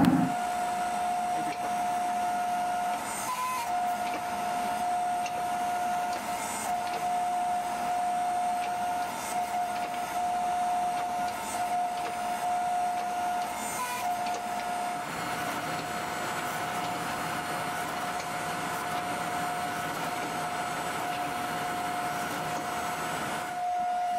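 Hydraulic forging press running with a steady whine while it presses a hot Damascus billet. A deeper hum joins the whine about two-thirds of the way through.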